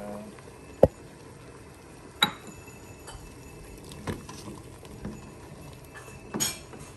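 Kitchenware knocking and clinking against a stainless steel soup pot as celery is added and stirred in with a wooden spoon: four sharp knocks a second or two apart, the first, about a second in, the loudest.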